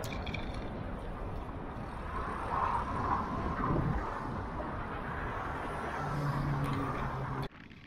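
Wind rushing over a bike-mounted DJI Osmo Action camera's microphone while riding, mixed with cars and trucks driving past on the road alongside. Near the end the sound cuts suddenly to a much quieter level.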